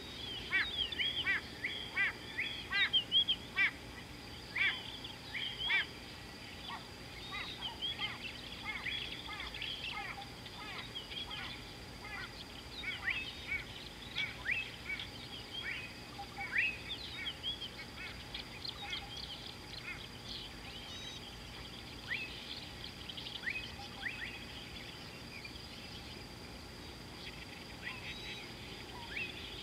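Small birds chirping, many short quick notes close together in the first few seconds, then fewer and more scattered, over a faint steady high-pitched hum.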